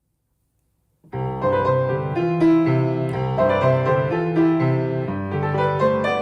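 Piano playing the introduction of a gentle song, starting about a second in after silence, with a repeating bass figure under chords.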